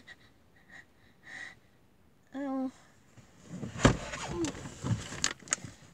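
A child's short vocal sound, then a run of knocks and bumps as he shifts about in a car's back seat with his shoes against the front seat back, the sharpest knock about four seconds in.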